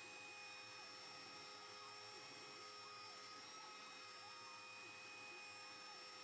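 CNC mill spindle running with its end mill cutting a disc: a faint, steady whine of several held tones over a hiss.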